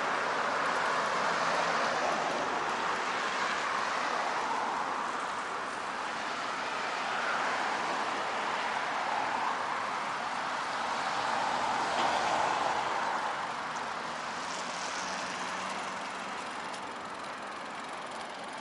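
Steady rushing noise of wind and road while riding a bicycle in a strong cold wind, swelling and easing every few seconds.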